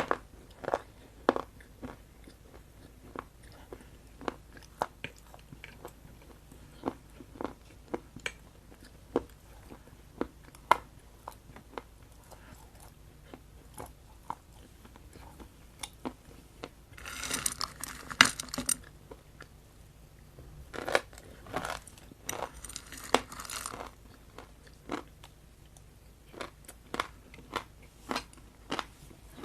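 Close-up mouth sounds of a person biting and chewing something damp and crumbly: scattered sharp crunches and clicks, with two longer bouts of crunching past the middle.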